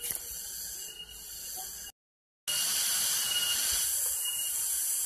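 Steady outdoor background hiss that cuts to complete silence for about half a second roughly two seconds in, then resumes a little louder.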